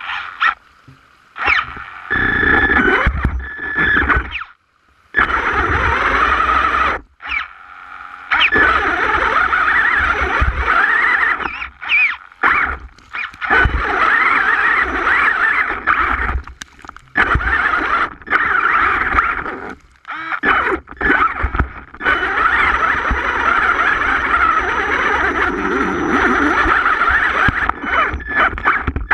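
HPI Savage Flux RC truck's brushless electric motor and geartrain whining as it drives through a shallow rocky creek, with water splashing and the chassis knocking over stones. The whine stops and restarts abruptly several times.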